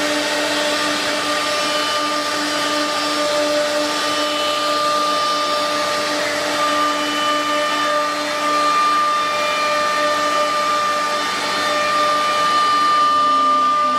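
Industrial CNC router's spindle running steadily while cutting a sheet of wood board: a constant high whine over a rushing hiss of cutting and machine noise.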